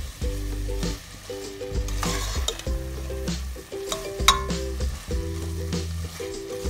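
A spoon stirring thick prawn masala in a steel pan, with a light sizzle, scraping and a sharp clink about four seconds in. Background music with repeating low notes plays under it.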